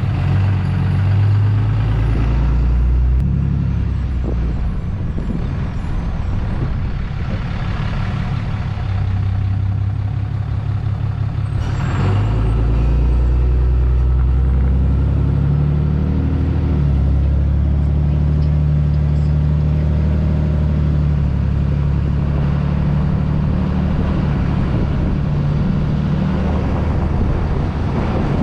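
Truck driving slowly: a steady low engine hum with road noise, the engine note shifting a few times as it slows and picks up speed.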